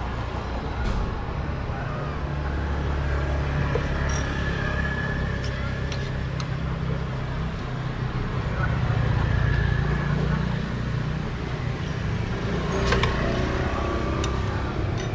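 Road traffic going by: motor vehicles running past with a steady low rumble that swells about halfway through, with a few light clicks.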